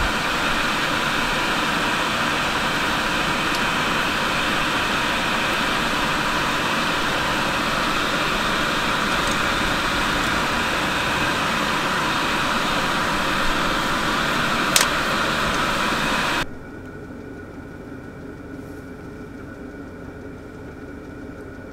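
Diesel air heater running, its fan blowing a steady rushing whir of warm air out of the outlet. About three-quarters of the way through it drops to a much quieter steady hum with a few faint whining tones.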